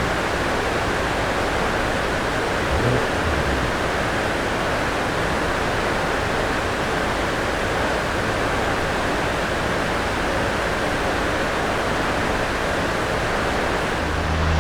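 Steady, even rush of air from large cooling fans running between dyno pulls. A low steady hum joins in near the end.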